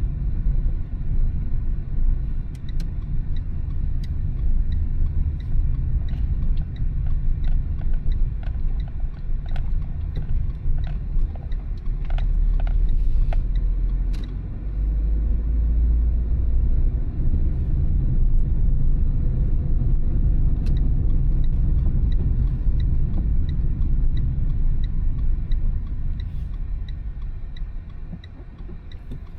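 Car cabin sound while driving: steady low road and engine rumble. In the second half the turn-signal indicator ticks evenly, and the rumble drops away near the end.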